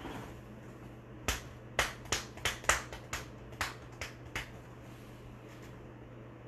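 A quick, uneven run of about ten sharp clicks or snaps, starting about a second in and stopping after about four seconds, over a low steady hum.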